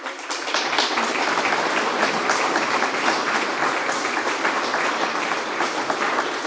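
Audience applauding, breaking out all at once and holding steady as a dense patter of many hands clapping.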